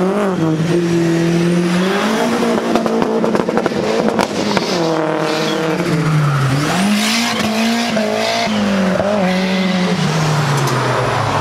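Car engines revving as cars drive off, the pitch rising and falling in repeated sweeps, with a cluster of sharp cracks about four seconds in.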